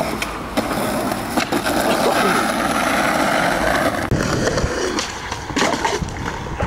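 Skateboard wheels rolling on concrete, with the board clacking against the ground several times.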